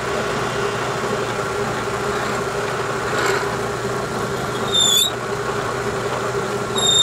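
Bridgeport milling machine's spindle running steadily while a reamer is fed down into a drilled hole in steel stock, with a short high-pitched squeal from the reamer cutting about five seconds in.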